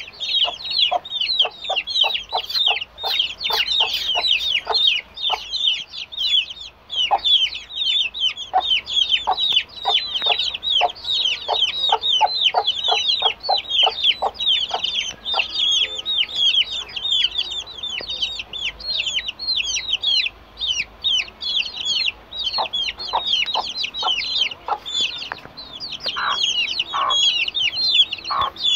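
A brood of chicks peeping without pause, many high falling peeps a second, with a mother hen clucking in short low notes underneath, regularly through the first half and again near the end.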